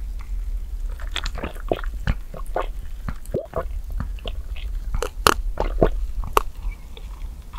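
Close-miked mouth sounds of drinking an iced drink from a plastic cup: gulps and swallows with a steady run of sharp wet clicks.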